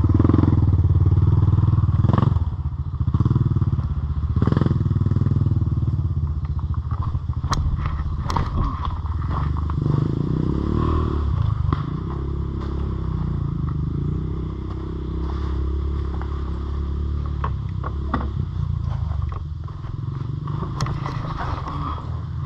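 Off-road vehicle engine running and revving on a trail, its pitch rising and falling, with scattered knocks and clatters.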